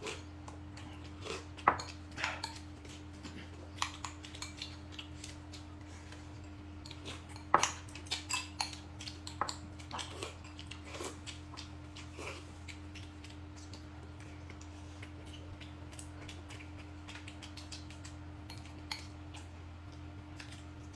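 Scattered clinks and clicks of cutlery against dishes, bunched around eight to eleven seconds in and sparser after that, over a steady low hum.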